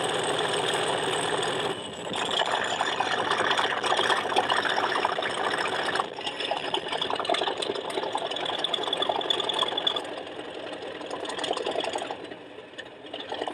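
Model Class 37 sound decoder playing its English Electric V12 diesel engine sound through the loco's small speaker, held stationary and worked hard. The engine note steps up and down every few seconds as the throttle notches change, easing off near the end.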